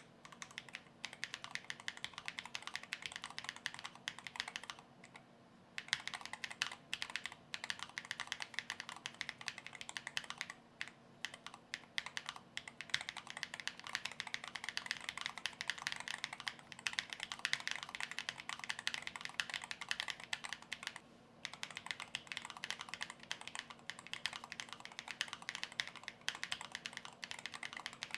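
Typing on a Chilkey ND75LP low-profile mechanical keyboard with its stock all-POM Aster switches, unmodified: a rapid, steady run of keystroke clacks. The typing breaks off briefly about five seconds in and again about twenty-one seconds in.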